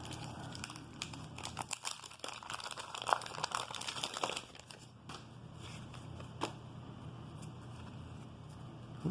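Wax-paper wrapper of a 1988 Donruss baseball card pack crinkling and tearing as the pack is ripped open, busiest from about one and a half to four and a half seconds in, followed by quieter handling and a single click.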